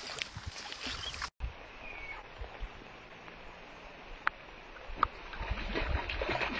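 Water splashing and churning at the edge of a pond among ducklings, with two short high peeps; the splashing grows louder near the end as the water is broken up among the birds.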